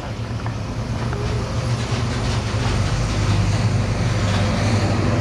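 A low, steady motor or engine hum that grows louder over the first couple of seconds and then holds steady.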